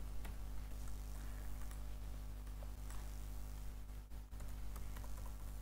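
Steady low electrical hum with a few faint clicks from a computer keyboard.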